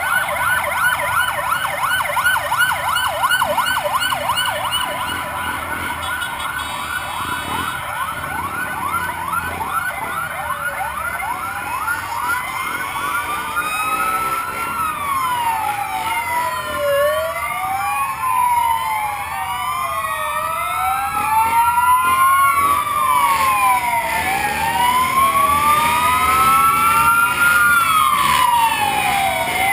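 Emergency vehicle sirens from fire brigade vehicles: a fast, repeating yelp for the first dozen seconds, then two or more sirens wailing slowly up and down, overlapping each other.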